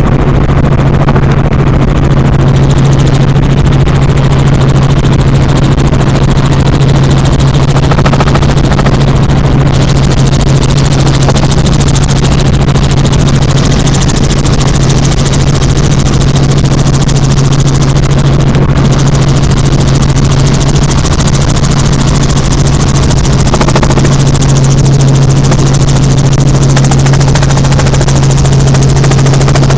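Helicopter engine and rotor noise heard from inside the cabin in flight: a loud, steady drone with a strong low hum.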